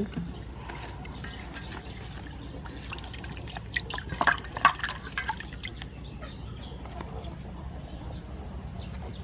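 Water splashing and dripping in a stainless steel bowl as hands wash tomatoes and green onions, with the loudest splashes about four to five seconds in.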